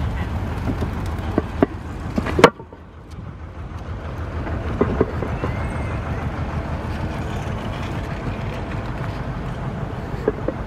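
Outdoor city ambience: a steady low rumble, likely distant traffic, with faint voices. A sharp crack about two and a half seconds in, after which the sound drops away and swells back.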